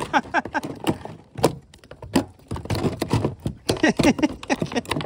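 A bass flopping in the bow of a plastic kayak, its body and tail slapping and thumping against the hull, a pair of shoes and a tackle box in quick irregular knocks.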